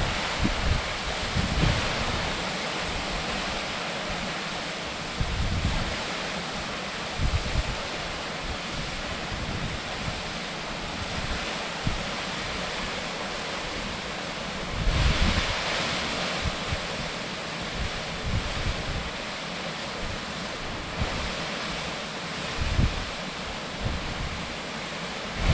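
Steady rushing roar of the Higashishiiya waterfall, an 85 m straight plunge, with wind gusting on the microphone now and then, strongest about fifteen seconds in.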